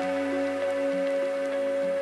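Background music: calm electronic music with sustained tones and soft notes repeating under them.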